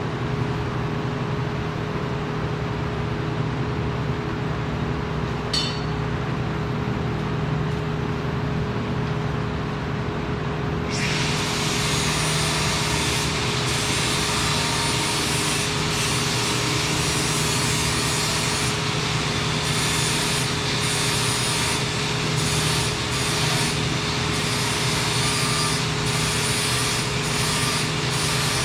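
Welding-shop equipment: a steady machine hum, then about eleven seconds in a loud hiss starts suddenly and carries on with brief breaks, the sound of metal-fabrication work such as arc welding or cutting.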